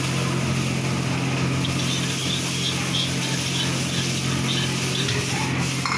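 Gas burner running steadily under a wok while noodles are tossed and stir-fried, with a faint run of small high chirps from about two seconds in.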